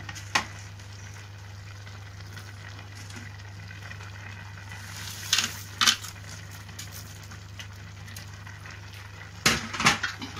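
Vegetable broth boiling in a kadai, a steady bubbling hiss, broken by a few sharp taps: one near the start, two about halfway, and a quick cluster near the end.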